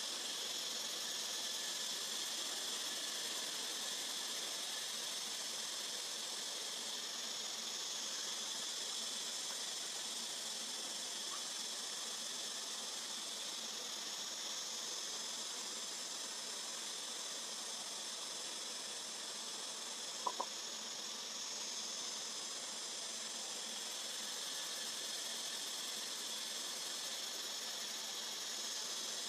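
Steady high-pitched drone of a forest insect chorus, with two short sharp clicks about twenty seconds in.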